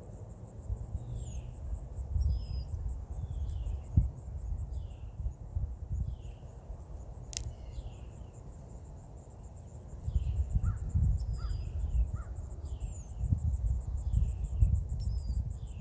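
Outdoor insect chorus trilling in a steady high pulsing drone, with a bird repeating a short downward-slurred call over and over. Low rumbling noise on the microphone comes and goes, loudest near the end, and there is a single sharp click about seven seconds in.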